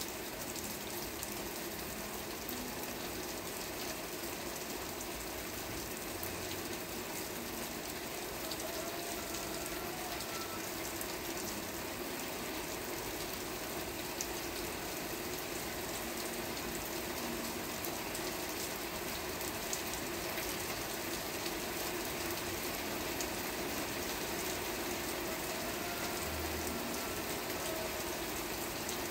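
Steady rain falling, an even hiss speckled with many small drop ticks.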